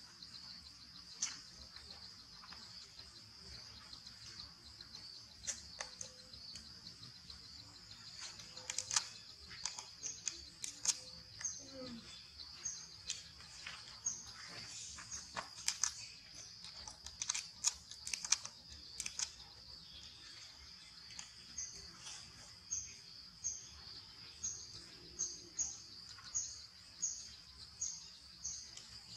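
Forest ambience: a steady high-pitched insect drone, with a bird repeating a short high chirp about twice a second in the last third. In the middle there are scattered sharp clicks and short calls.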